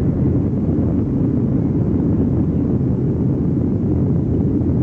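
Jet airliner's engines heard from inside the passenger cabin during takeoff: a loud, steady, low noise that holds level.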